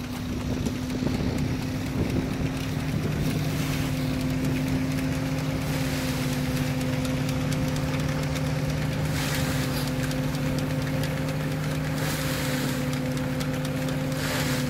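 Vintage 1928 threshing machine running steadily with a constant hum, as oaten straw is fed into it. A few short rushing bursts come in the second half, as sheaves go through the drum.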